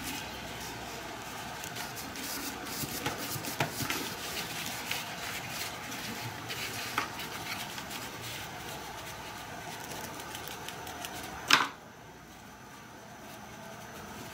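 Small handling noises of hand work on a nylon collar: light scratching and clicking as a pointed awl is worked through a rivet hole among metal rivet posts, over a steady faint hiss. One sharper, louder click comes near the end.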